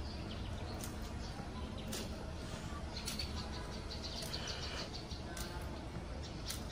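Birds chirping over a low steady background rumble, with footsteps on a concrete lane about once a second.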